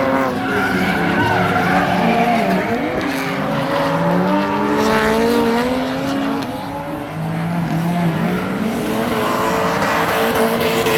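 Drift cars sliding through a corner: engines revving hard, pitch rising and falling as the throttle is worked, over tyres squealing and scrubbing.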